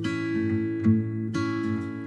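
Background music played on acoustic guitar, with chords ringing and new notes struck every half second or so.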